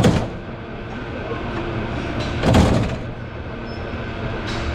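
1896 single-truck streetcar No. 578 running on rails: a steady rumble and hum, with two loud clunks about two and a half seconds apart.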